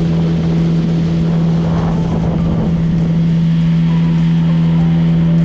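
Motorboat engine running at a steady speed, a constant drone.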